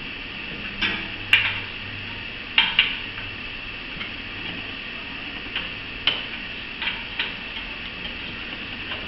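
Light metallic clicks and clinks from work on a bicycle wheel being trued, scattered irregularly, about nine in all and some in quick pairs.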